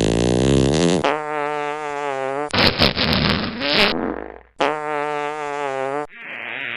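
A run of fart sound effects played back to back: a wavering one, a long steady buzzing one, a shorter broken one, then after a brief pause the long buzzing one again.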